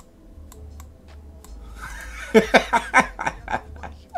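A man laughing: a run of short chuckles about two seconds in, after a few faint clicks.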